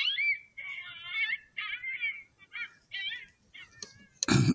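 Electronic predator caller playing high-pitched, wavering animal distress cries in short repeated phrases, about two a second. Near the end there is a loud, sudden handling clunk.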